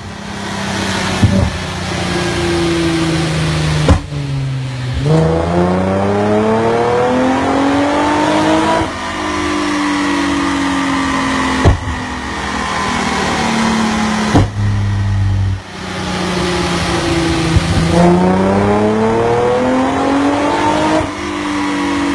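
Nissan 350Z (Z33) 3.5-litre V6 and exhaust running under load on a chassis dyno. The engine revs climb in pitch through the range, then fall back as it coasts down, twice, with a few sharp pops along the way.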